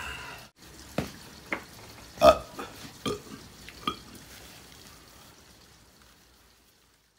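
A man's short mouth sounds after a meal: a few separate clicks and smacks, the loudest a burp a little over two seconds in.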